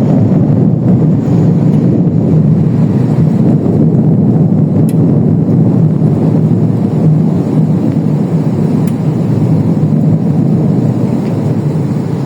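A loud, steady low rumbling noise that holds almost unchanged throughout.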